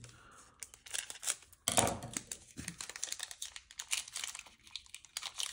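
A foil Pokémon trading-card booster-pack wrapper crinkling and tearing as it is opened by hand, with a brief low sound about two seconds in.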